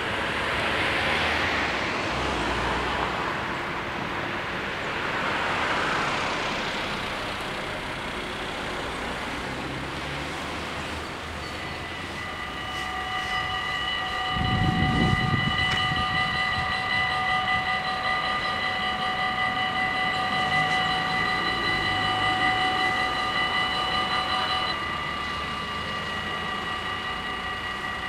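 Road traffic passing, then about twelve seconds in the level crossing's electronic warning bells start ringing, a steady chord of several tones, as the automatic half-barrier crossing activates. Near the end part of the chord drops out while the remaining bells keep ringing.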